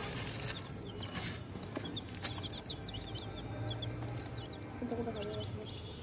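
Young chicks peeping: many short, high chirps in quick succession, overlapping from several birds.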